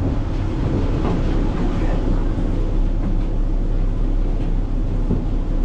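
A vehicle's engine running steadily: a low, even rumble with a constant hum.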